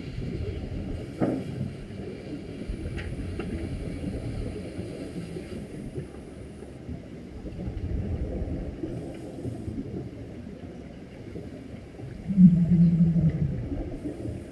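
Underwater recording: a steady muffled low rumble of water noise, with a few faint clicks. Near the end a scuba regulator exhales, a loud rush of bubbles with a low buzz lasting about a second.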